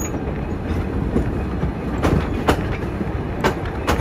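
Passenger train carriage rolling slowly on jointed track: a steady low rumble of wheels and running gear, with sharp clicks in two quick pairs in the second half as the wheels cross rail joints.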